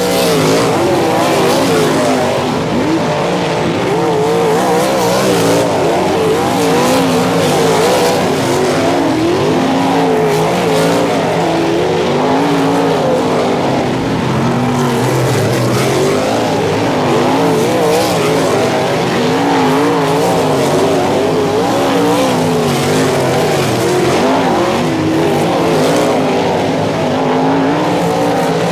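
Several non-winged sprint cars' V8 engines running loud and continuous at speed during hot laps. Their pitch keeps rising and falling as the drivers lift and get back on the throttle through the turn.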